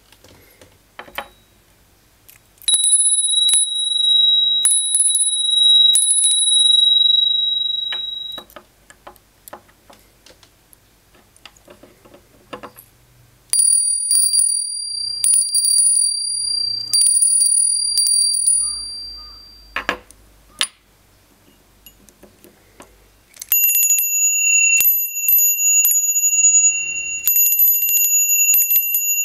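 Three brass bear bells are shaken by hand one after another, each ringing clear and bright with its own pitch. The first is most likely the montbell trekking bell, followed by the Kuma ni Kanabō DX and then the Mori no Suzu L TB-K2, which rings lowest of the three. A single sharp knock comes about two-thirds of the way through, between the second and third bells.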